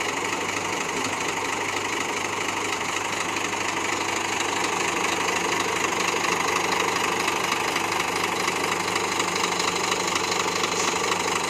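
An engine running steadily at one speed, a constant low hum under a wide hiss.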